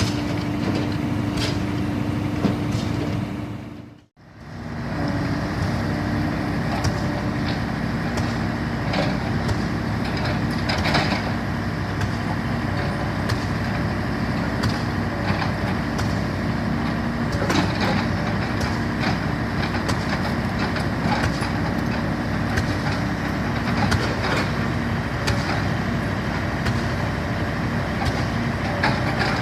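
Caterpillar 320D hydraulic excavator's diesel engine running steadily, with occasional sharp knocks and scrapes from the machine at work. The sound cuts out briefly about four seconds in, then the engine comes back.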